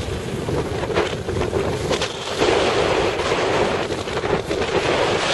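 A small boat under way at sea: wind buffeting the microphone and water rushing and splashing against the hull, over the steady hum of the boat's engine. It grows louder about two and a half seconds in.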